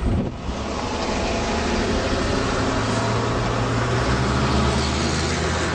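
Electric tram running on its track: a steady rumble and rush of noise, with a low motor hum coming in about three seconds in.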